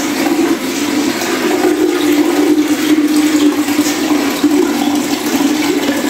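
Steady rush of waste water from a Haier top-load washing machine draining through its drain hose into the bathroom drain: the draining stage of the tub-clean cycle.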